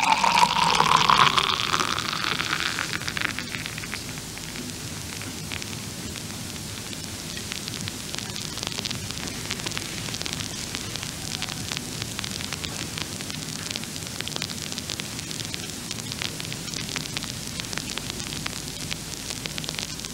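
Beer poured from a bottle into a glass, the pouring sound rising in pitch over the first few seconds as the glass fills. Then steady fizzing and crackling of the beer's foam as its bubbles pop.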